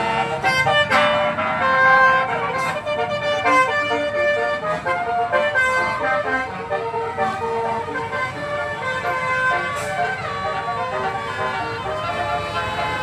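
An 18-note telolet musical horn on a bus, playing a melody of stepped horn tones in quick succession, with the bus engine running underneath.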